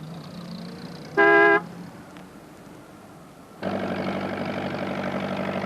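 A vehicle horn gives one short toot, the loudest sound here. A couple of seconds later a motor vehicle engine cuts in abruptly and runs steadily with a fast, even beat.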